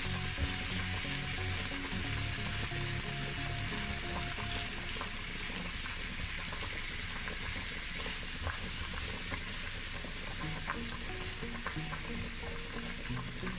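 Chicken, onion, capsicum and tomato sizzling in a non-stick frying pan as they are stir-fried with a plastic slotted spatula. Now and then the spatula scrapes or taps against the pan.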